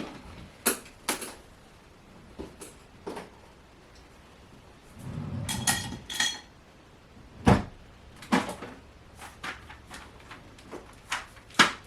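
Small hard objects being handled and set down: a scatter of sharp clicks and knocks, about ten in all, the loudest about seven and a half seconds in, with some rustling and shuffling around the middle.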